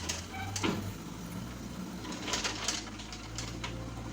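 Compact backhoe loader's diesel engine running steadily, with scattered metallic knocks and clanks from the working machine.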